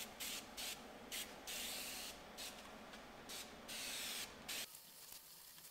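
Aerosol spray can spraying cleaner: a quick run of short hissing bursts, then a few longer sprays of under a second each, stopping about four and a half seconds in.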